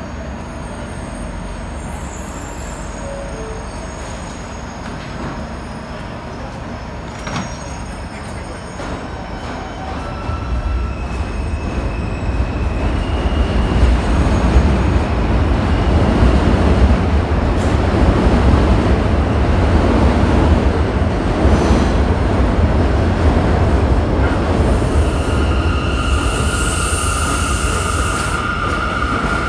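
R179 subway train pulling out of an elevated station: a steady low hum at first, then the rumble of the cars grows louder from about ten seconds in as it picks up speed. A high steady whine joins near the end.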